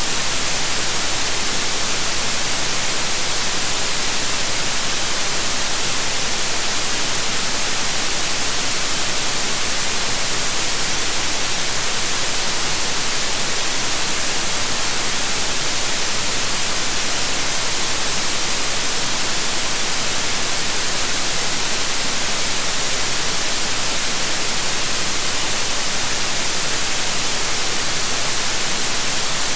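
Steady synthetic white noise: an even, unchanging hiss spread across all pitches, brightest in the highs.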